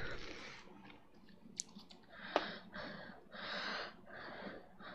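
Faint breathing close to a headset microphone: several short unpitched breaths, with a sharp click about one and a half seconds in and another a little after two seconds.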